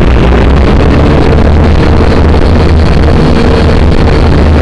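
Syma toy quadcopter's motors and propellers buzzing steadily and very loud, picked up by the drone's own onboard camera microphone as it lifts off the grass.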